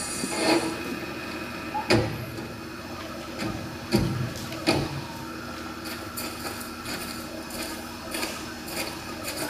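A steady rumble dies away within the first second, then a handful of scattered knocks and thuds follow, the loudest about two and four seconds in, with lighter clicks near the end.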